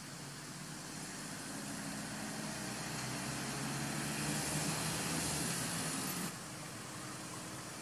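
Motor vehicles passing on a road: engine hum and tyre noise grow louder over about five seconds, then drop away sharply a little after six seconds in.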